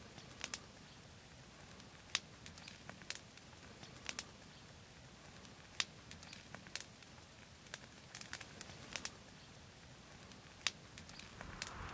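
Campfire crackling faintly, with sharp pops from the burning wood at irregular intervals.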